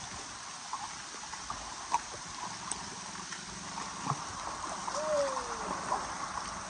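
Shallow stream running over rocks, a steady hiss with a few light clicks from steps on stone. A short falling call sounds about five seconds in.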